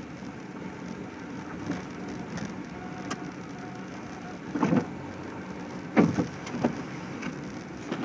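Vehicle interior noise: a steady low engine and road hum as the car moves slowly over wet, slushy pavement. Two clusters of sharp knocks and thumps cut in, about halfway through and again about six seconds in.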